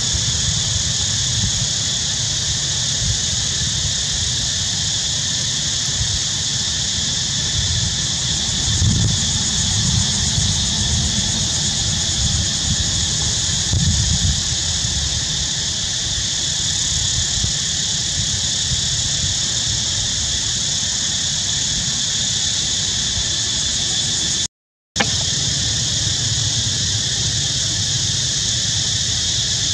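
Steady high-pitched insect chorus in two unchanging bands, over a low rumble that swells now and then.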